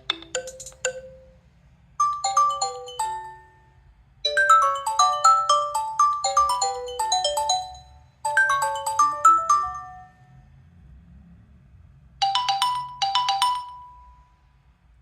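Nokia 3.1 Plus stock ringtones playing: several short melodic phrases of quick, bright notes separated by brief pauses, then two short figures after a pause of about two seconds.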